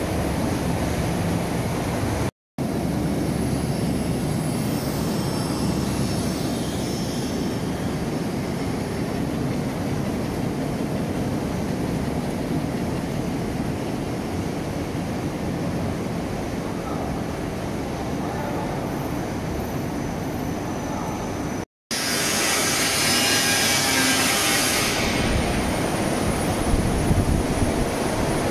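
Steady machinery noise from a running potato chip production line, with a brighter hiss for a few seconds after a short dropout. A second short dropout comes earlier.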